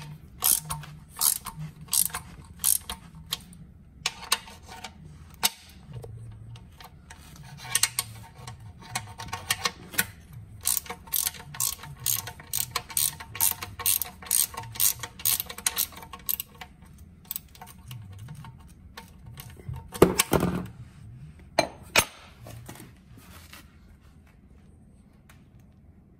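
Ratchet wrench clicking in quick runs, about three or four clicks a second, as it loosens a car's oil drain plug. About twenty seconds in there is a louder knock and a few more clicks.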